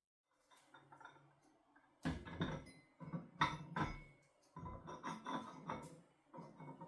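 Kitchenware being handled: clinks and knocks of dishes or utensils in four short bouts of clatter.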